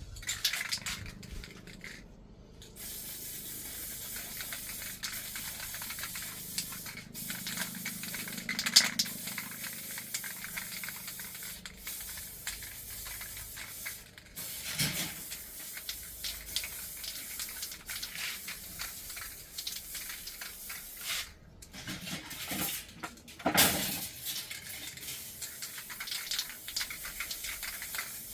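Aluminum crab-scoop parts being handled and put together: scattered light clicks and knocks, with louder knocks about 9 and 24 seconds in, over a steady hiss.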